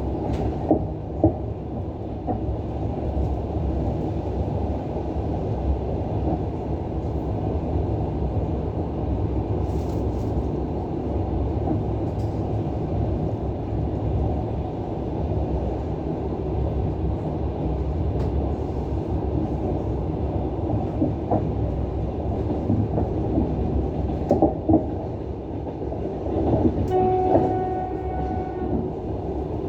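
Diesel-hauled passenger train running along the line: a steady rumble with the clatter of wheels over rail joints. Near the end the train's horn sounds once, a held tone lasting about a second and a half.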